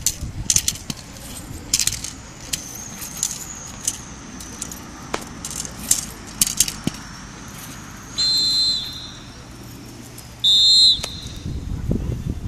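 Metal chain collar jingling and clicking in irregular bursts as the dog moves at heel, then two short, loud whistle blasts a little over two seconds apart, each about half a second long.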